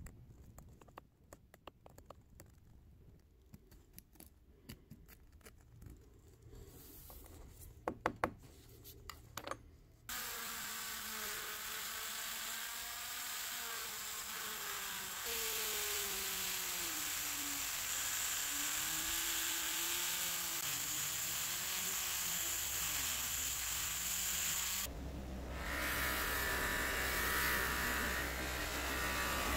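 A metal pick scraping and clicking as caked carbon is dug out of a small brass stove part, with a few sharp knocks. About ten seconds in a small electric motor starts buzzing steadily, its pitch wavering, and near the end a bench buffing wheel runs with a low hum as a brass ring is polished on it.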